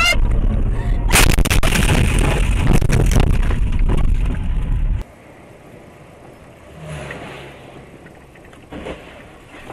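Car crash recorded by a dashcam inside the car: from about a second in, a loud run of impacts, crunching and scraping lasting about four seconds. It then cuts off suddenly to faint road noise.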